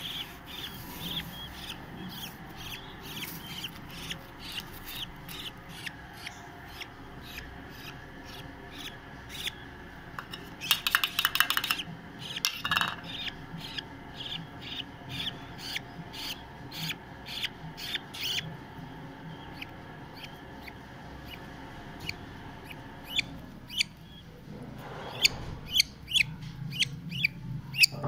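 Budgerigar chick being hand-fed, giving short raspy begging calls over and over, about one or two a second, with a fast, louder run of calls about ten seconds in.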